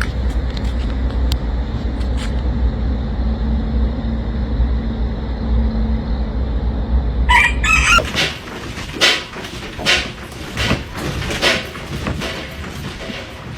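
A steady low rumble, broken about seven seconds in by a rooster crowing once, followed by a run of irregular sharp rattling knocks.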